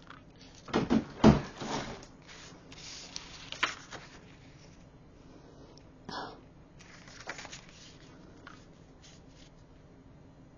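Sheets of scrapbook paper being handled on a cutting mat: a cluster of knocks and rustles about a second in, then lighter sliding and rubbing of paper against the mat and a measuring tool.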